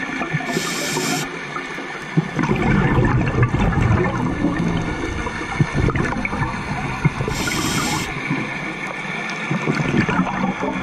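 Scuba regulator breathing heard underwater: a short hiss of inhaling through the demand valve about half a second in and again about seven seconds in, each followed by several seconds of exhaled bubbles gurgling out.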